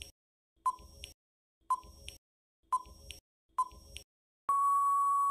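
Quiz countdown timer sound effect: four short beeps about a second apart, then one longer steady beep near the end, marking that the answer time is up.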